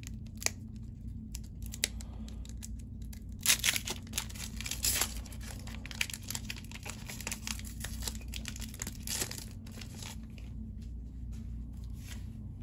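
Foil Pokémon Battle Styles booster pack wrapper being torn open and crinkled by hand: irregular ripping and crackling rustles, busiest a few seconds in and again later, over a steady low hum.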